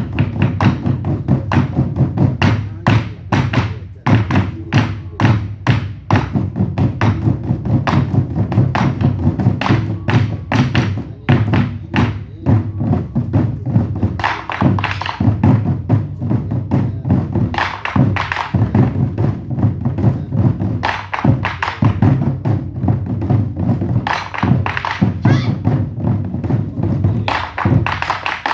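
Ensemble of large Korean barrel drums (buk) beaten in a fast, driving rhythm with deep, heavy strokes, in a Goguryeo-style drum performance.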